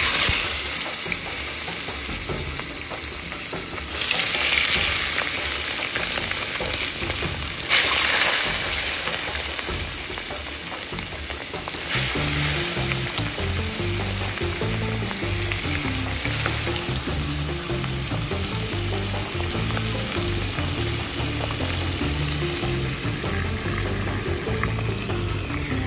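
Food frying in a hot pan: a dense, steady sizzle that swells suddenly a few times, about every four seconds, in the first half.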